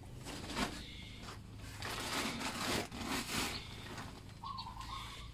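A bird's short, wavering call near the end, over a steady low hum, with a louder burst of rustling noise about two seconds in.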